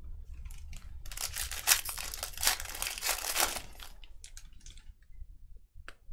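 Crinkling and rustling as trading cards and their packaging are handled, densest for a few seconds after about a second in, then thinning to a few light clicks near the end.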